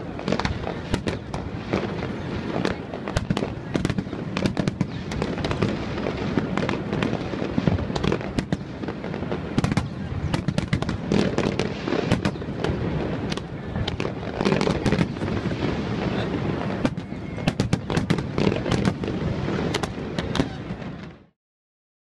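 Fireworks display: a dense, continuous run of bangs and crackling from many shells bursting, cutting off suddenly near the end.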